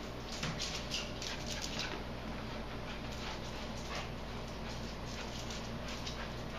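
Small dog playing on a tiled floor, its claws clicking and tapping in a quick flurry during the first two seconds, then a few scattered taps later.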